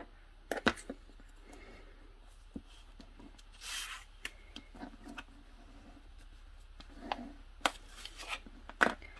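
Paper and acetate being handled and pressed down on a cutting mat: scattered light taps and rustles, with a brief papery swish a little under four seconds in.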